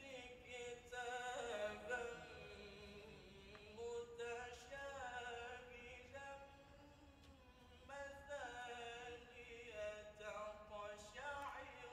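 A man reciting the Quran in melodic tilawah style, singing several long phrases with winding, ornamented turns of pitch on held notes.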